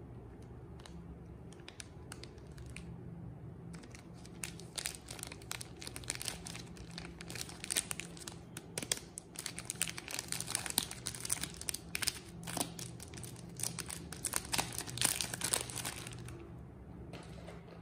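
Paper wrapper of a bar of soap being torn open and pulled off by hand: a dense run of crinkling and tearing that starts about four seconds in and stops shortly before the end.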